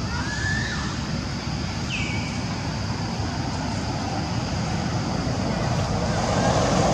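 Steady outdoor background noise, a continuous low rumble and hiss, with a couple of faint short high calls: one rising near the start and one falling about two seconds in.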